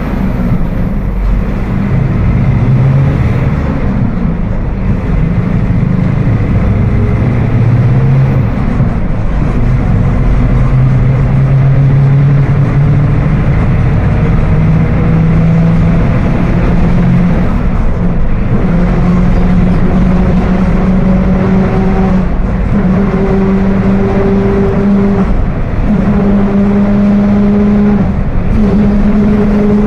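Mercedes-Benz OF 1721 BlueTec 5 bus under way with its rear differential growling: a loud hum with a whine above it that climb gradually in pitch as the bus gathers speed, dipping briefly twice near the end. The growl is the sign of a fault in the rear axle.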